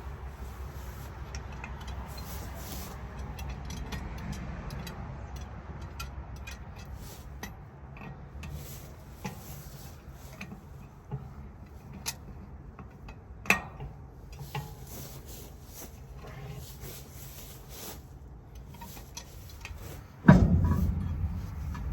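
Vehicle engine running with a steady low hum and scattered light clicks and rattles. Near the end, a much louder low rattling rumble starts suddenly.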